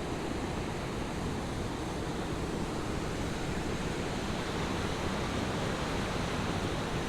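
Steady rushing wind, gusting across the microphone with a low rumble.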